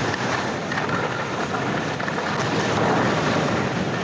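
Blizzard Anomaly 94 skis hissing and scraping across groomed snow while carving the first turns, with wind rushing over the microphone. The noise swells and eases with the turns.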